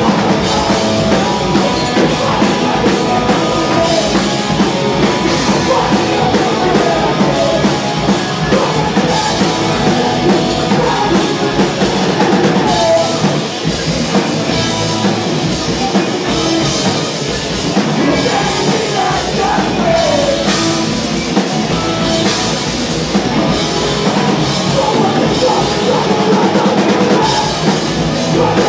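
Hardcore punk band playing live and loud: distorted electric guitars and a drum kit, with shouted vocals.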